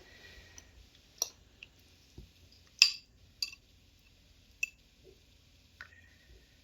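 Scattered light clicks and taps of a spoon against a bowl as minced-meat filling is spooned onto pastry dough, about seven in all, the loudest about three seconds in.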